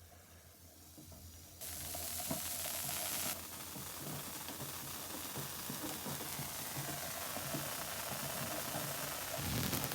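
Wimshurst machine running with a steady crackling hiss of electrical discharge that starts suddenly about a second and a half in, a high thin tone over it for the first couple of seconds and a low thump near the end.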